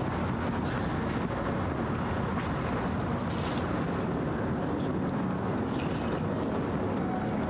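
Water poured from a container onto the cloth over a restrained man's face during waterboarding, meant to fill his nose, over a steady background hum.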